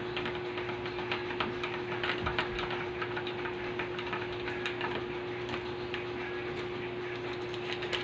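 Metal spoon stirring coffee in a glass mug, clinking against the glass in a quick, uneven run of light ticks, over a steady hum.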